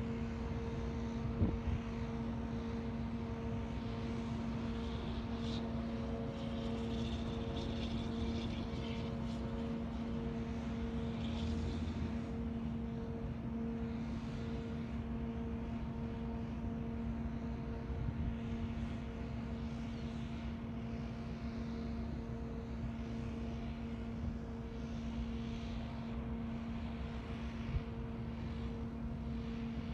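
Steady engine-like hum, with cars passing on a road and a couple of light knocks, about a second and a half in and near the end.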